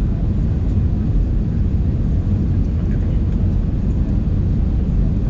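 Steady low rumble of cabin noise inside an Airbus A320 in flight, from the engines and airflow.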